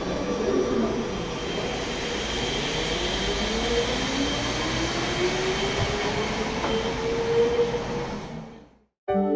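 VAL 208 rubber-tyred automated metro train pulling away slowly, staying under 30 km/h, heard through glass platform screen doors. Its rumble carries a motor whine that rises steadily in pitch as it gathers speed, along with a steady high tone. The sound fades out near the end and music starts.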